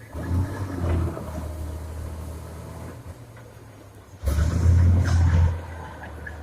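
Komatsu D70LE crawler bulldozer's diesel engine working under load. It surges briefly near the start, eases off, then surges louder for about a second and a half from about four seconds in.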